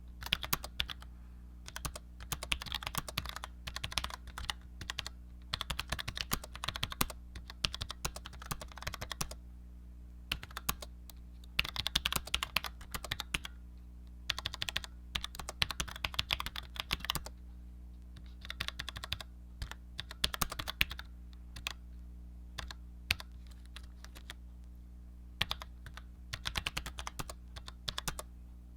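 Typing on a Cherry G84-4100 compact keyboard with Cherry ML low-profile mechanical switches: rapid key clicks in runs of a second or two, broken by short pauses. A steady low hum runs underneath.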